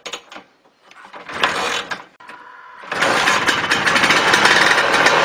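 Old Vespa scooter's two-stroke single-cylinder engine being restarted after breaking down: two short sputters, then it catches about three seconds in and runs steadily.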